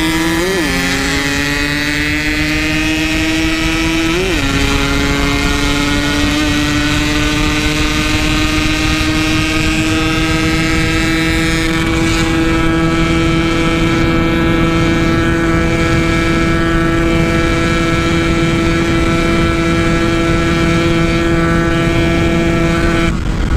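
Yamaha RX-King 135cc two-stroke single, fitted with a stock-style Packing Power exhaust, pulling at full throttle. It shifts up twice in the first few seconds, then holds a long steady high-speed drone that slowly climbs in pitch. Near the end the throttle closes and the note drops.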